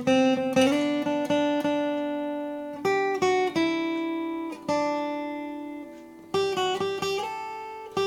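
Taylor PS14ce acoustic guitar played solo: picked notes, then chords left to ring and fade, with quicker picking starting again about six seconds in.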